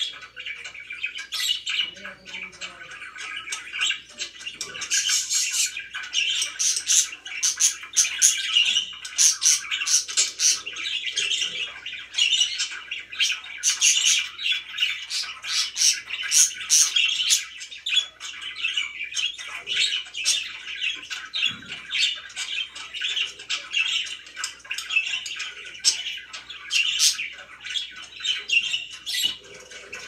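Several pet budgerigars chattering without a break: a dense run of short, high chirps and squawks.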